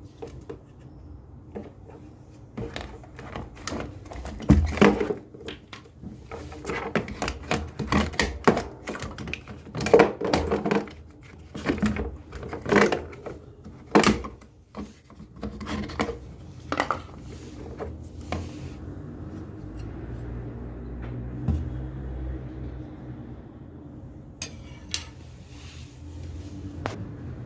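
Irregular clattering and knocks of hard objects being handled, over a low steady hum. The clatter is densest in the first half, and the hum carries on nearly alone in the last third, with a couple of knocks near the end.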